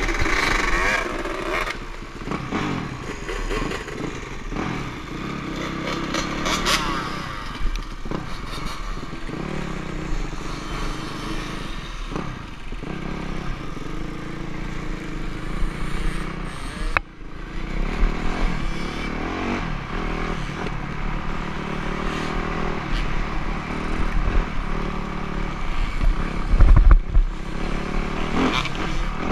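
Dirt bike engine running and revving up and down while riding, with a brief drop a bit past halfway.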